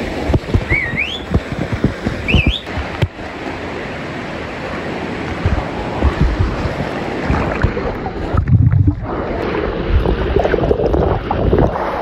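Water pouring hard through a narrow cave passage, a loud steady rush close to the microphone, with knocks and splashes as people climb through it. Two short rising squeals sound about one and two and a half seconds in, and a little past the middle the sound turns briefly muffled with a low rumble.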